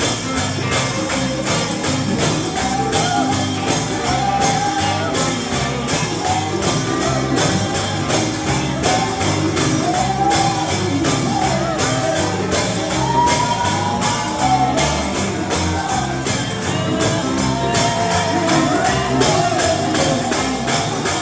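Gospel song performed live, a voice singing over a band with tambourine keeping a steady beat.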